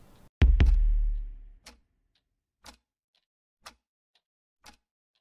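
A deep, dramatic double hit with a low boom that fades over about a second. Then a wall clock ticks about once a second, each loud tick followed by a fainter tock.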